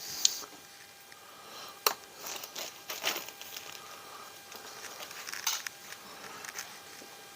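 Small bearings and transmission parts being handled on a workbench: several sharp light clicks among crinkling and rustling.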